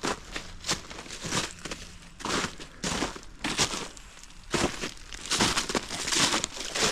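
Footsteps crunching along a rough trail at an unhurried walking pace, one step about every half second or so.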